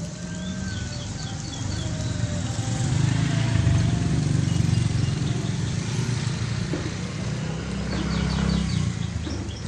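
Samsung WA80U3 top-load washing machine draining its tub before the spin cycle: a steady low rumble of water running out, swelling a few seconds in and again near the end.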